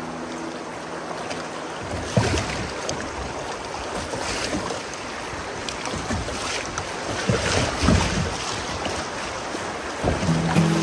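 Moving river water with wind on the microphone: an even wash of noise, with a few brief louder moments, the first about two seconds in.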